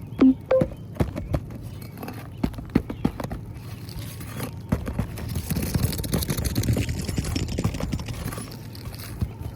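Irregular knocks, taps and scraping of hand work on an old asphalt shingle roof as a shingle is being pried loose, with a denser stretch of scraping and rustling about halfway through.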